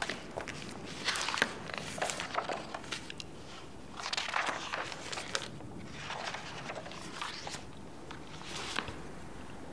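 Sheets of paper rustling in short, irregular bursts as a stack of handwritten letters is leafed through.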